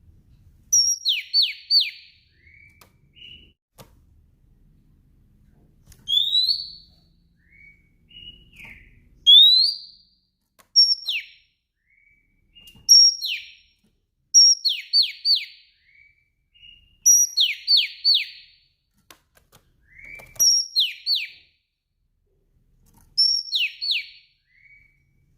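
Female oriental magpie-robin calling in short repeated phrases, each a high whistled note followed by two or three quick falling notes, with a few rising notes and lower chirps in between and brief pauses between phrases.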